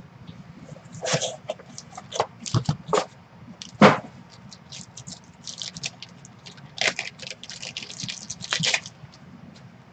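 Crinkling and tearing of a shiny black trading-card pack wrapper worked open by hand: irregular bursts of crackles, with one sharper, louder snap about four seconds in and a dense run of crinkling near the end.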